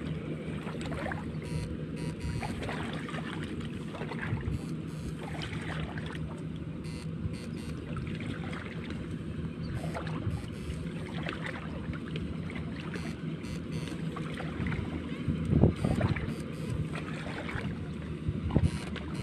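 A steady low motor hum with wind on the microphone and scattered short knocks or splashes. A louder low burst comes about fifteen seconds in.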